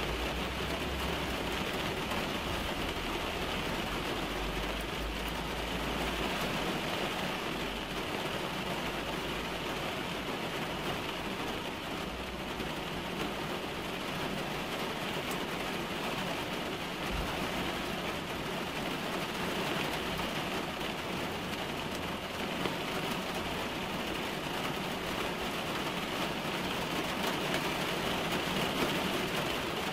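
Steady rain falling on a car's roof and windshield, heard from inside the cabin as an even, dense patter.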